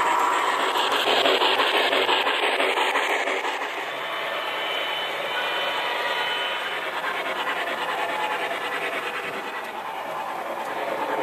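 HO scale model freight train running along the track: a steady rolling, rubbing noise of the wheels on the rails and the locomotive's drive, with faint thin squeals in the middle.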